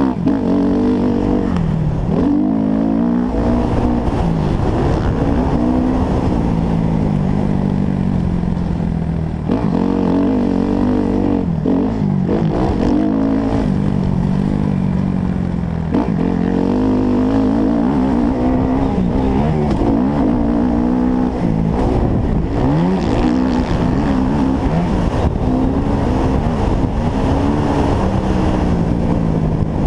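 Kawasaki KX-F four-stroke single-cylinder motocross bike engine ridden hard, its pitch climbing through the revs and dropping back again and again as the rider shifts gears and rolls off the throttle.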